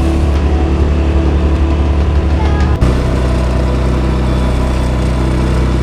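Small outboard motor running steadily at part throttle, still being broken in. About three seconds in, its tone changes abruptly.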